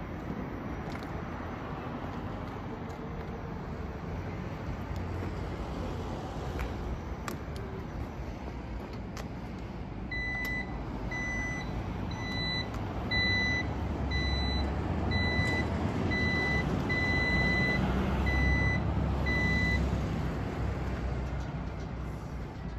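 Fukushin Denki SPX-4500 electric mobility scooter driving on asphalt, its motor and tyres making a low steady hum that grows louder in the second half. From about ten seconds in, its warning beeper sounds a high beep a little more than once a second for about ten seconds.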